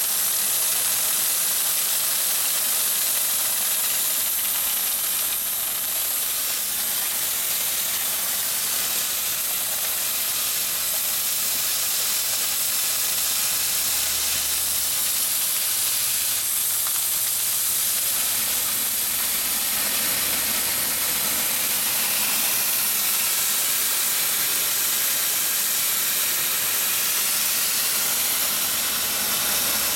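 AFFF foam fire-suppression system discharging through the nozzles in a Cat D10 bulldozer's engine bay: a steady hiss of pressurized spray.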